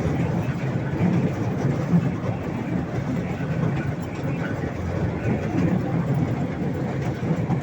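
A park toy train running along its track, a steady, even rumble.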